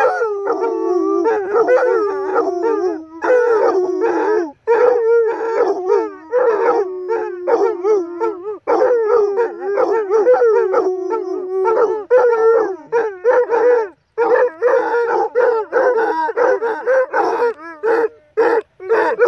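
Three basset hounds howling together in long, wavering, overlapping notes. In the last few seconds the howls break into shorter, choppier calls.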